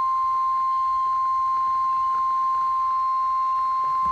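NOAA Weather Radio 1050 Hz warning alarm tone: one loud, steady, unbroken beep held at a single pitch. It is the signal that a weather warning broadcast follows.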